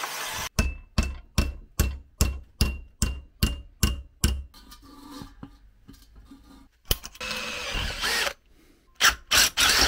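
An angle grinder cutting steel stops about half a second in, followed by about ten hammer blows on a steel part clamped in a vise, two to three a second, each ringing briefly. Near the end come a few louder rasping bursts of metalwork.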